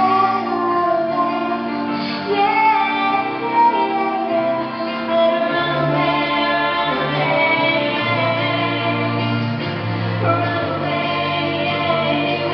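Music: a song with a female singing voice over instrumental accompaniment, with a deeper bass part coming in about halfway through.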